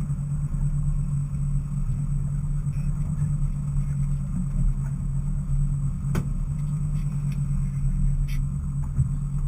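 Boat engine running steadily at trolling speed: a constant low drone and hum. A single sharp click about six seconds in.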